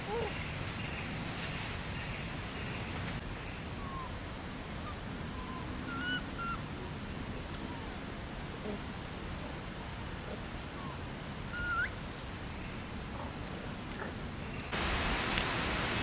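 Outdoor ambience: a steady low rumble with a few faint, short chirps scattered through it. About a second before the end, a louder rush of wind and rustling leaves sets in.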